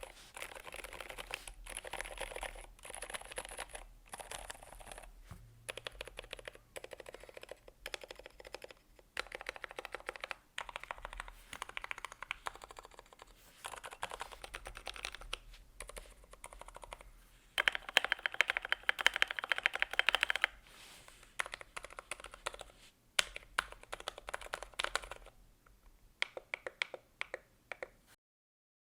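Continuous typing on a Glorious GMMK Pro mechanical keyboard with Gateron Silent Black linear switches, an aluminium plate and Akko keycaps: rapid key presses, louder and denser for about three seconds past the middle, stopping just before the end.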